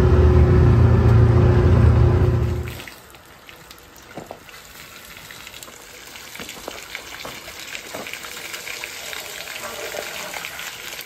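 A vehicle engine running with a steady low hum, cut off abruptly about three seconds in. It is followed by a much quieter stretch of faint crackling and scattered small clicks.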